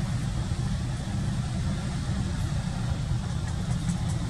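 A steady low rumble of background noise, with a few faint clicks near the end.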